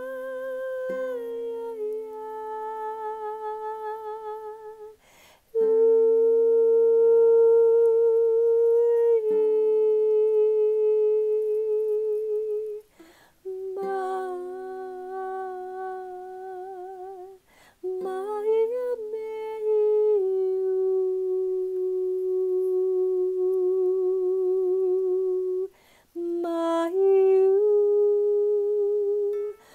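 A woman's voice toning long, wordless sustained notes, some with a wavering vibrato, in phrases broken by short breaths. Soft chords on a tenor ukulele ring under several phrases and fade away.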